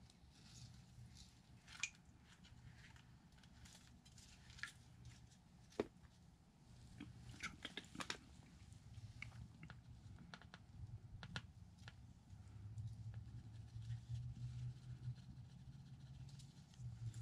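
Faint scattered clicks and light rustles over a low steady hum, with two sharper clicks about two and six seconds in.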